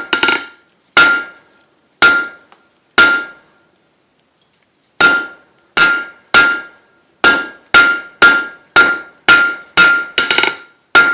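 Hand hammer striking 5/16-inch mild steel round stock on an anvil, each blow followed by a bright ring from the anvil. Four evenly spaced blows, a pause of about two seconds, then a quicker run of about a dozen blows.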